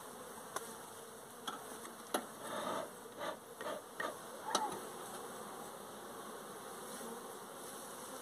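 Honeybees buzzing steadily around an opened wooden hive, with several sharp wooden knocks from the hive tool and frames and a few short puffs from a bee smoker in the first half.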